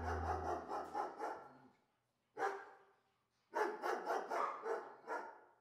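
An animal calling in short, rapid barking yelps: a quick run of about six, a lone call a second later, and a second run of about six near the end.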